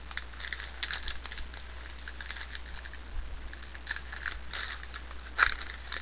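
Baseball trading cards being flipped through and slid past one another by hand: a run of light, papery clicks and rustles of card stock, with one sharper snap near the end.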